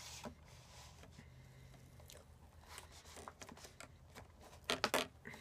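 Someone eating cookies-and-cream cake close to the microphone: chewing and the small clicks and scrapes of a spoon working the cake, with a cluster of three louder clicks near the end.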